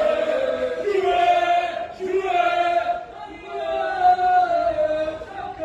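Football supporters in the stands singing a chant together, with melodic phrases of held notes about a second each and brief breaks between phrases.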